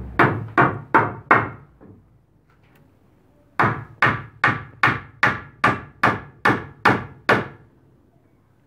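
Hammer driving a nail through a wooden batten into a wooden shoring prop: a run of about five blows, a pause of about two seconds, then about ten more at a steady pace of roughly two and a half a second.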